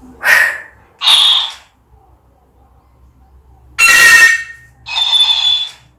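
African grey parrot screeching: four shrill, piercing calls of about half a second each, two close together at the start and two more about four seconds in.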